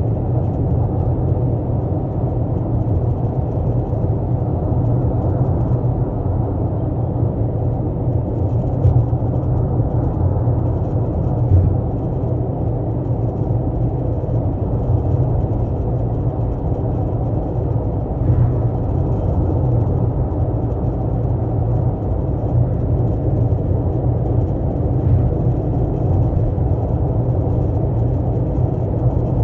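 Steady low rumble of a 12th-generation Toyota Corolla Altis running, with a few faint short knocks scattered through it.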